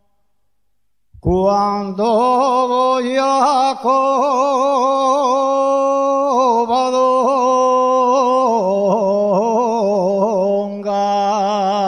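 Asturian tonada: a solo voice sings long, drawn-out notes with wavering ornaments. It comes in about a second in after a near-silent pause, with a brief dip near the end.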